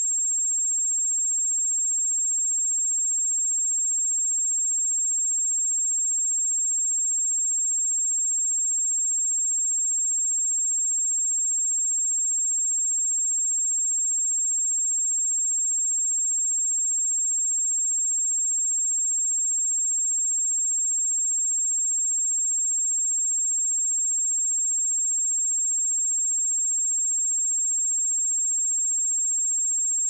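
A pure 7495 Hz sine test tone, held at one steady, high pitch and an unchanging level.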